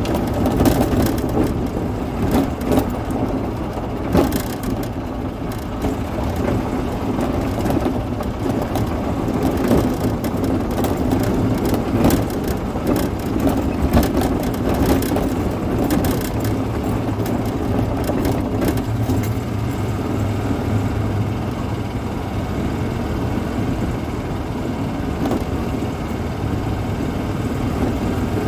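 2011 Yamaha G29 golf cart driving along, its motor running steadily, with tyres crunching on gravel and the cart rattling over bumps through roughly the first two thirds; the ride runs smoother near the end.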